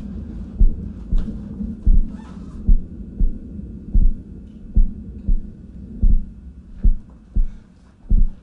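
Deep, evenly spaced thuds, about two a second, over a low steady hum, as in a pulsing heartbeat-like track of a dance score.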